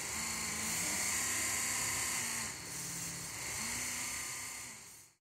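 Small electric motor driving a 3D printed gear pump, whirring steadily to power a scale double-acting hydraulic cylinder. A lower hum comes in and drops out twice, with a brief dip about halfway, as the servo-driven valve is worked; the sound cuts off suddenly near the end.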